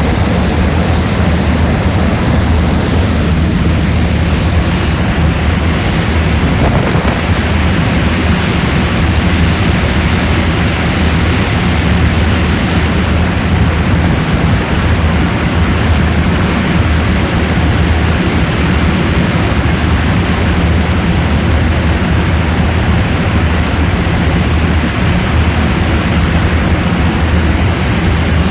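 Loud, steady drone of a Yak propeller aircraft's piston engine, mixed with the rush of air, heard on board in flight. It holds at an even level throughout.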